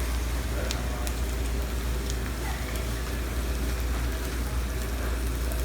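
Peppers, onions and mushrooms sizzling steadily in clarified butter in a frying pan over medium-high heat, with a low steady hum underneath and a few faint clicks.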